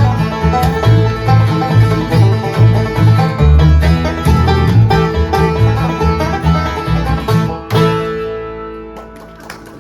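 Acoustic bluegrass band playing live with banjo prominent over a steady bass pulse. The tune ends on a final chord about eight seconds in, which rings out and fades.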